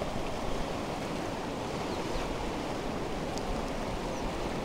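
Ice-cold mountain river rushing fast around and past, a steady rush of flowing water with small waves.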